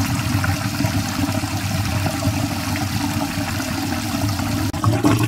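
Washing machine drain water pumped out of the drain hose, through a mesh lint filter bag and down a 4-inch PVC standpipe: a steady, loud rush of falling water with a low hum under it. The drain is flowing freely past the filter.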